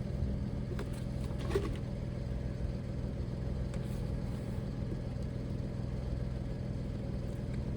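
Steady low hum of a vehicle engine idling, with a few small clicks in the first couple of seconds as a plastic electrical connector is worked loose.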